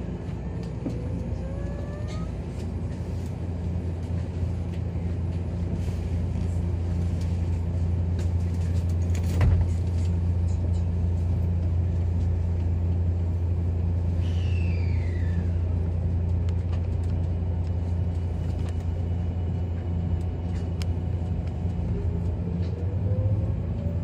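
Running noise inside a JR 383 series limited express electric train car: a steady low hum with a faint whine that rises in pitch near the start and again near the end. A higher whine falls in pitch a little after the middle. There is one sharp knock a little before the middle.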